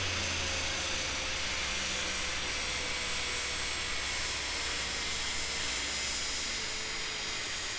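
Steady airy rush with a low steady hum underneath, in a dynamometer cell just after the Dodge Challenger's engine has come off a rev.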